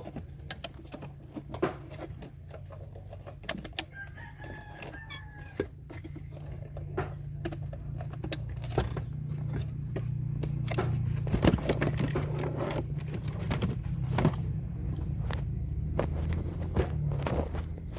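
A rooster crows once, about four seconds in, for a second and a half. Around it come scattered sharp clicks and knocks, over a steady low hum that grows louder in the second half.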